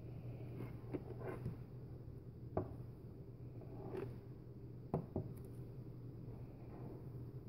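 A shrink-wrapped plastic DVD case being handled and turned over on a countertop: about half a dozen light taps and clicks, over a steady low hum.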